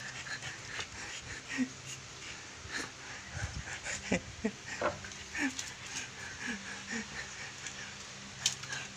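An aspin dog panting and giving a few short whines and grunts as it squirms while being held, with rustling and a few knocks from the handling.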